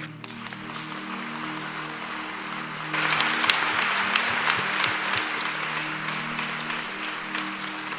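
Congregation applauding a baptism over soft, sustained background music; the applause swells sharply about three seconds in and then slowly fades.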